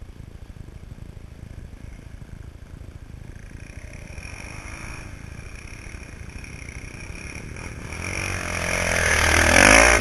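Dirt bike engine, faint at first and getting steadily louder as it comes close, then revved hard with its pitch rising and falling near the end, loudest just before the end.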